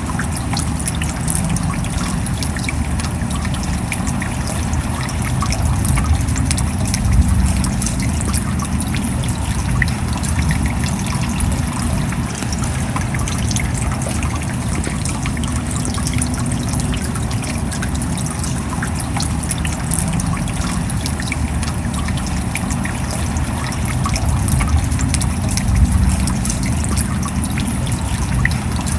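Steady rain, with many individual drops ticking over a constant wash and water trickling. It swells slightly twice.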